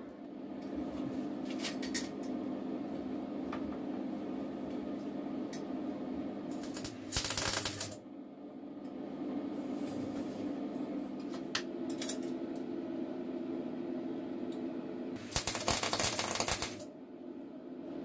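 Light metallic clinks of cutlery pieces being handled on a steel workbench, over a steady low hum. Two loud hissing bursts of about a second and a half each come about seven seconds in and again near the end.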